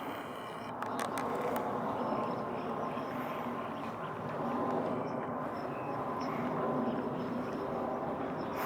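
Steady outdoor background noise: a low, even hum with a faint constant tone through it, and a few sharp clicks about a second in.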